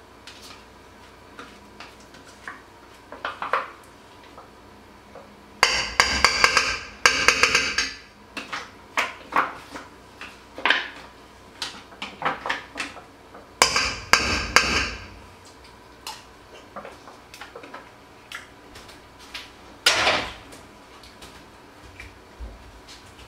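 Kitchen utensil clatter: a spoon scraping and knocking against a plastic tub and other dishes. Scattered light clicks, with two louder stretches of clattering scrapes about six and fourteen seconds in and one sharp knock near the end.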